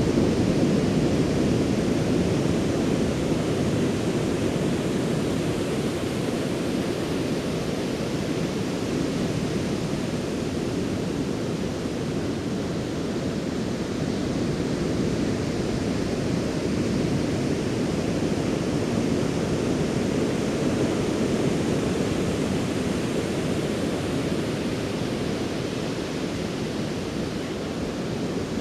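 Ocean surf breaking along the beach shore: a continuous low wash of waves that swells and eases slowly every several seconds.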